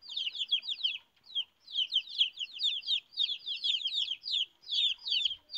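A group of downy chicks peeping: many quick, high chirps, each sliding down in pitch, overlapping one another, with a brief lull about a second in.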